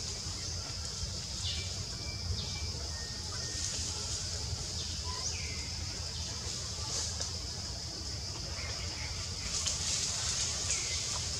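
Birds giving short, repeated calls that drop in pitch, every second or two, over a steady high-pitched drone and a low background rumble.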